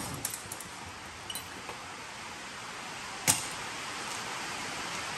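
Steady hiss of rain, with a few light clicks early on and one sharp knock about three seconds in.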